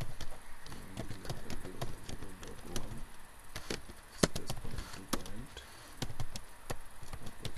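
Computer keyboard being typed in short, irregular runs of clicks, the sharpest click about four seconds in.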